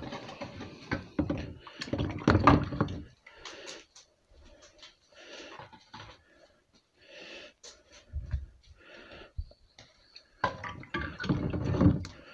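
Parts-cleaner liquid sloshing and splashing in a plastic tub as a Chevrolet Astro valve cover is lowered in to soak, with knocks of the part against the tub. It comes in irregular bursts, loudest about two seconds in and again near the end.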